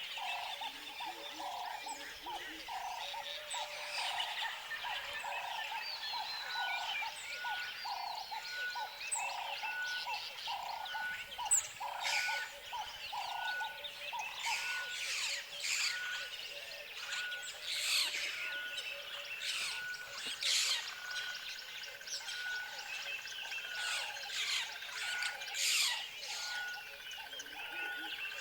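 Tropical forest ambience of many birds chirping and calling over one another. A run of short low calls repeats about twice a second through the first half, and a short higher note repeats about once a second from a few seconds in.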